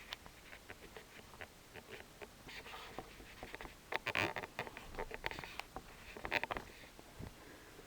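Quiet handling noises: scattered small clicks and short crinkly rustles of a small plastic bag being handled and written on to mark the removed screws.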